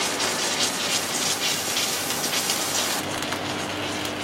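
Flux-recovery vacuum nozzle sucking up the granular powder flux left on a fresh submerged-arc weld, a dense steady hiss with fine crackle. About three seconds in it gives way to a quieter machine hum with a steady low tone.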